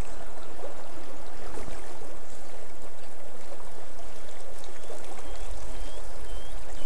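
Shallow mountain river running over rocks: a steady rush of flowing water.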